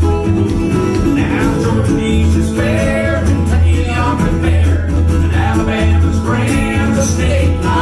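Acoustic country band playing live: a strummed acoustic guitar, lead lines on a resonator guitar and a steady bass line.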